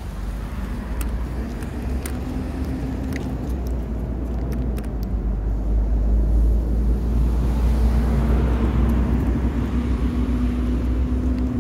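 Road traffic: a car driving past, a low steady rumble with an engine hum that grows louder about halfway through.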